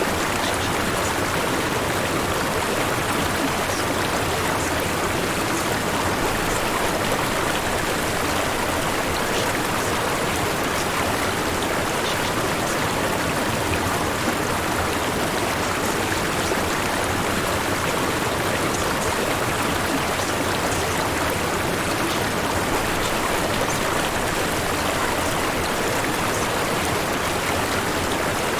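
Steady white-noise bed with a rushing-water sound, even in level with no change.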